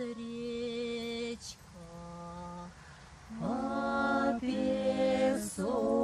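Folk ensemble singing a drawn-out folk song in harmony, in long held notes. After a quieter stretch, a louder phrase comes in with a rising scoop about three and a half seconds in.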